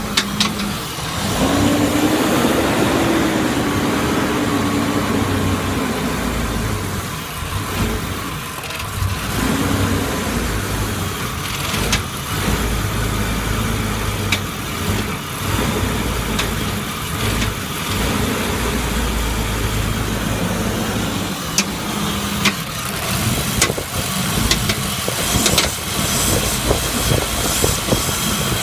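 BMW M52TU 2.8-litre straight-six running cold. Its speed rises about a second in, then settles to an idle, with sharp knocking clicks through it. This is the cold-start knock that fades as the engine warms up, which the owner traced to a cracked crankcase ventilation hose drawing in unmetered air.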